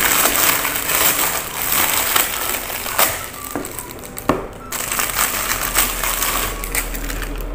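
Clear plastic wrapping crinkling and crackling loudly as it is pulled off skincare bottles by hand, with a few sharp clicks in the middle and a short pause just after.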